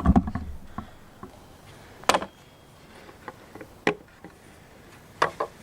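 A folding wooden test stand being handled and folded: scattered knocks and clicks from wood and its hinged folding legs, the loudest two about two seconds and four seconds in.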